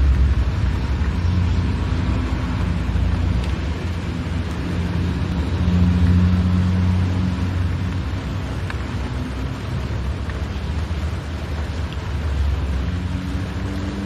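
Car cabin sound while driving in the rain: a steady low engine drone and road rumble over an even hiss of wet tyres and rain. The engine note rises slightly near the end.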